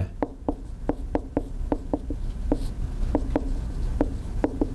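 Marker pen writing on a whiteboard: a run of short, irregular taps and strokes, several a second, as words are written out.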